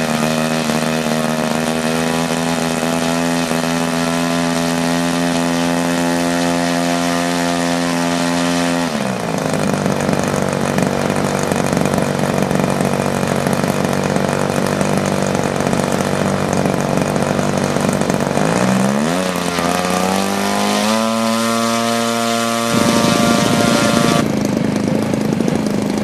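Radio-control model airplane's small engine running with its propeller turning, its note shifting several times as the throttle is worked: steady at first, rougher and higher from about nine seconds, then a rising sweep, a steadier stretch, and louder running near the end.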